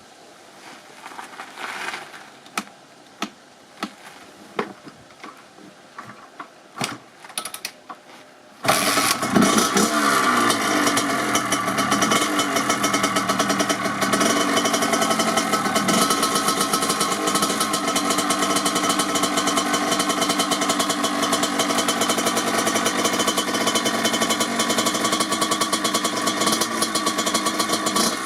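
A few clicks and knocks, then about nine seconds in the 1997 Kawasaki KX80's single-cylinder two-stroke engine catches suddenly on a cold start. It keeps running steadily, with a few brief revs soon after it fires.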